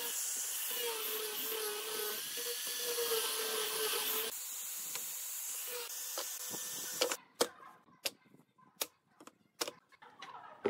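Angle grinder with a sanding disc running against a pine board: a steady whine over a loud hiss, the pitch wavering a little under pressure. It stops about seven seconds in, and a run of sharp knocks follows.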